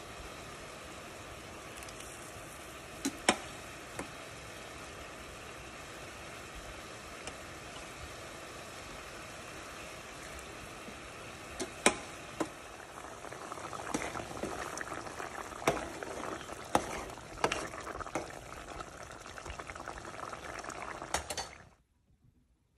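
Pot of broth with dough dumplings boiling on the stove: a steady bubbling that grows livelier about two-thirds of the way through, with a few sharp clicks and pops. It cuts off suddenly just before the end.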